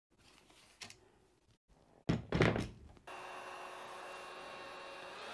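A short cluster of dull thunks about two seconds in, from something solid being bumped or set down, then a steady hiss with a faint hum from about three seconds on.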